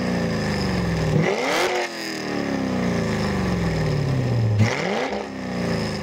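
Car engine rising sharply in revs twice, about a second in and near the end. Each time the revs fall away slowly over about three seconds.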